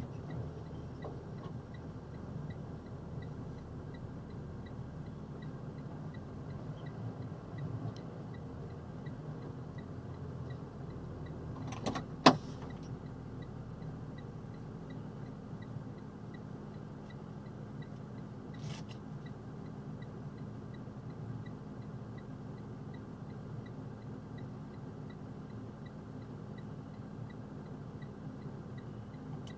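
Box truck engine idling steadily, heard from inside the cab, with one sharp knock about twelve seconds in and a softer one a few seconds later.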